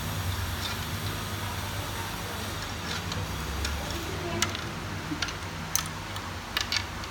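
A steady low hum with a handful of sharp, irregular clicks and taps in the second half.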